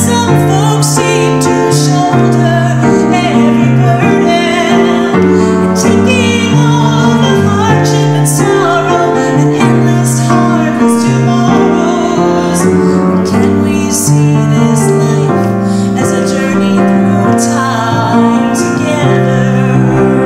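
A woman singing a slow song, accompanying herself on a grand piano. Her voice holds long notes with vibrato over sustained piano chords.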